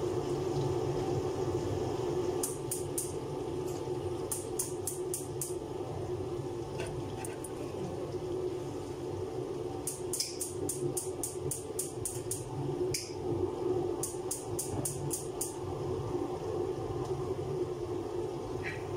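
A steady hum from the kitchen range hood's extractor fan. Over it, several short runs of quick, light metallic ticks come from a utensil being worked in a pan on the stove.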